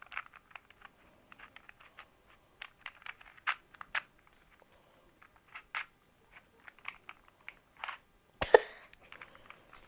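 Small plastic clicks and clacks, irregular and a few a second, as a Rubik's cube is handled and its layers twisted, with one louder thump near the end.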